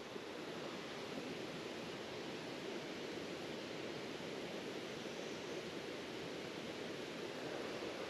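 Faint, steady rushing of water from a nearby waterfall or stream, an even hiss with no breaks.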